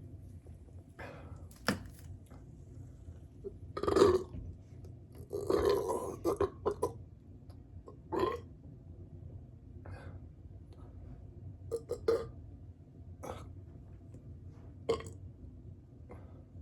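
A person burping over and over, a string of short belches with the loudest about four seconds in and a longer, drawn-out one around six seconds, from a stomach bloated with soda.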